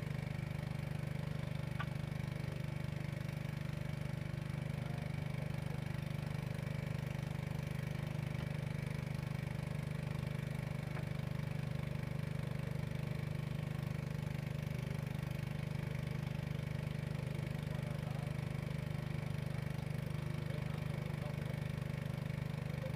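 Water-pump engines running steadily with a low, even hum, drawing water to irrigate fields dried out by a long drought.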